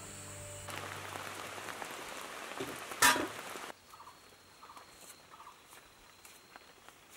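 Rustling handling noise, broken by one short, loud squawk from a chicken about three seconds in, then a few faint short clucks.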